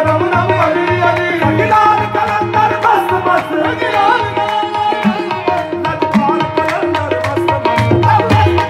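Live qawwali music in a fast dhamaal rhythm: tabla drumming with a steady beat under harmonium drones and melody.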